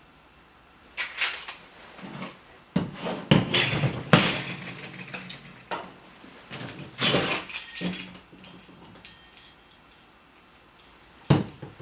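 Irregular knocks and metallic clinking as a riqq frame is handled and moved about, its small brass cymbals jingling, with the busiest clatter about three to five seconds in and a single sharp knock near the end.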